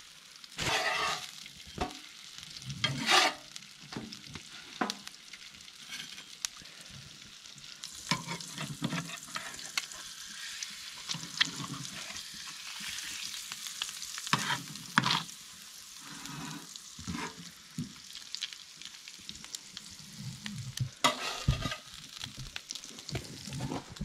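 Eggs frying and sizzling in a skillet on a wood stove, with occasional knocks and scrapes of a metal utensil against the pan.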